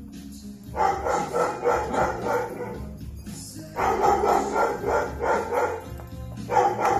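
Small chihuahua-type dog yapping in play, three runs of quick high barks with short pauses between them.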